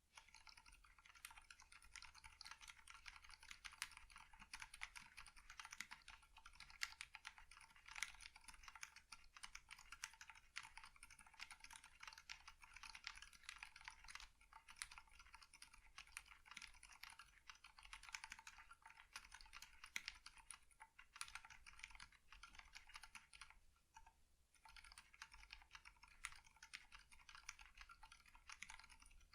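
Continuous quiet typing on a mechanical keyboard with lubed 70g Aliaz silent tactile switches on a polycarbonate plate with PBT keycaps: a steady stream of soft, muted key clicks. The typing pauses briefly about three-quarters of the way through.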